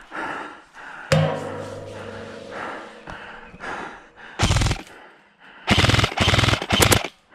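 Airsoft rifle firing three short full-auto bursts of rapid shots in the second half. About a second in, a sharp knock is followed by a steady tone fading over about two seconds.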